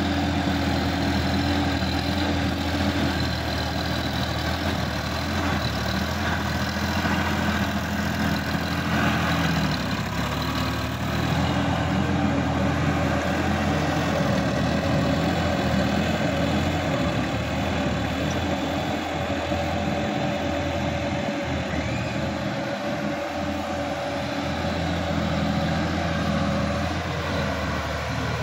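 Sonalika DI-50 RX tractor's diesel engine running steadily as it works a rotary tiller through a flooded, muddy paddy field. The engine note shifts about ten seconds in.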